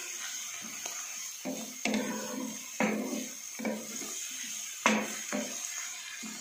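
Stir-frying: a utensil stirring and scraping cabbage and carrot in a nonstick frying pan, with sharp knocks against the pan about two, three and five seconds in, over a steady frying sizzle.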